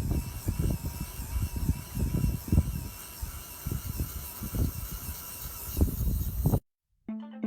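A small machine's irregular knocking and thudding over a faint steady whine. It cuts off abruptly a little before the end, and music begins.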